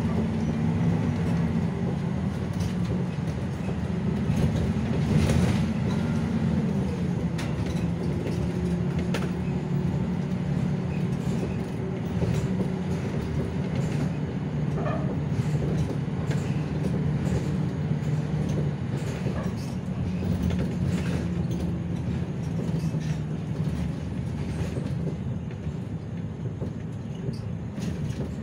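Inside a moving city bus: its engine running with a steady drone that shifts up and down in pitch as it accelerates and changes gear, with scattered clicks and knocks from the rattling cabin.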